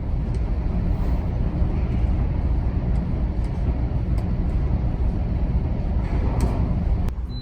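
Steady low rumble of a large car ferry underway at sea, its engines and hull noise running without a break.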